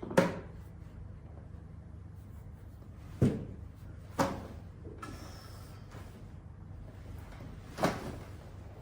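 Four sharp knocks from chiropractic adjustment thrusts on the treatment table. The middle two come about a second apart, the others a few seconds away on either side.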